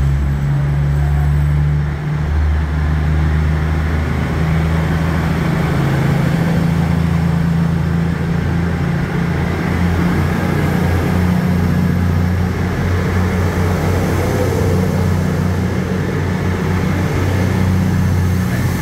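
East Midlands Railway Class 222 Meridian diesel multiple units running, their underfloor diesel engines giving a steady low drone as a train moves along the platform.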